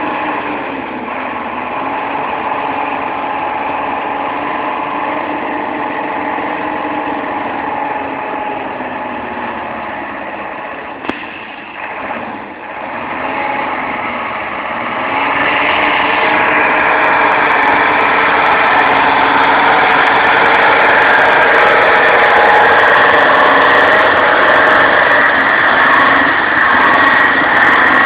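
Mercedes-Benz 814 light truck's diesel engine running steadily under throttle as the truck is drifted on snow. About halfway through it grows louder and higher in pitch and stays there.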